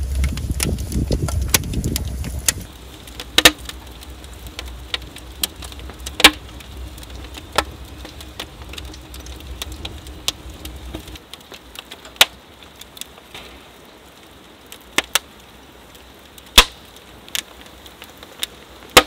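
Wood fire crackling in a clay cob pizza oven, with sharp pops and cracks from the burning logs every second or two. A low rumble underlies the first couple of seconds.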